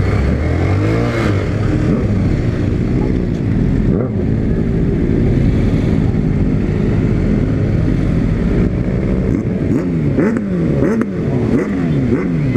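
Several motorcycle engines, among them a Honda CB300's single-cylinder, revved again and again with loud exhausts, the pitch climbing and dropping; near the end a few engines rev over one another.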